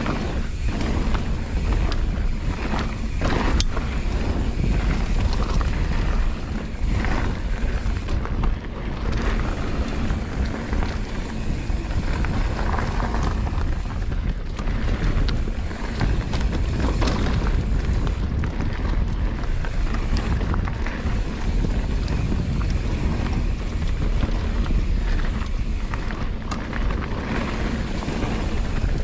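Mountain bike riding downhill on a dirt trail: wind buffeting the microphone and tyres rolling over the ground, with occasional knocks from bumps.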